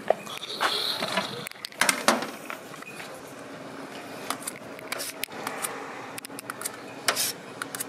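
A scoop knocking and scraping against a metal taho bucket and small plastic cups as silken tofu is served: a scattered string of short clicks and clinks.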